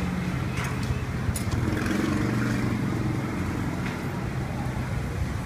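Street traffic engines running and passing, a steady low hum with slowly shifting engine tones. A few light clicks of a utensil against a ceramic bowl sound over it.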